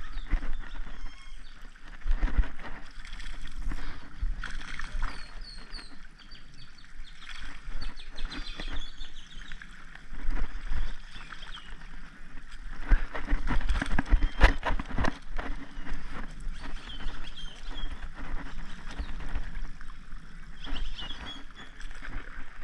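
Wind rumbling on a chest-mounted camera's microphone, with handling knocks and rustles from the angler moving about, the loudest cluster about halfway through, and faint birds chirping.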